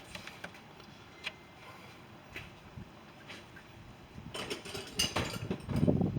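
Hand tools clicking and tapping on metal, sparse at first, then a busier clatter with some dull knocks about four seconds in.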